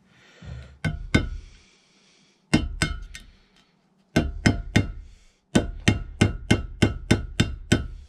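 Small hammer striking a nail held against the edge of a rusted-in, failed bearing to drive it out of a Woodland Mills HM130 sawmill bandwheel hub. First come a few separate blows, then runs of steady taps, about four a second near the end, each with a short metallic ring.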